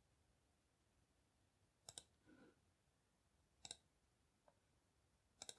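Faint computer mouse clicks over near-silent room tone: a quick pair about two seconds in, another pair just before four seconds, and a fast run of three or four near the end.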